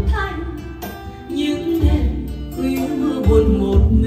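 A song with singing over a strong bass line, played back through a pair of Ruby 25 Neo column speakers on 50 Ruby subwoofers.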